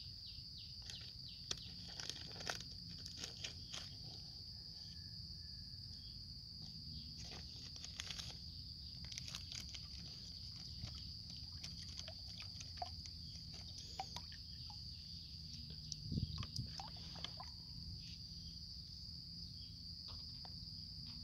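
Insects trilling steadily at a high pitch, with faint scattered clicks and rustles from hands handling a small packet and stirring water in a plastic tub.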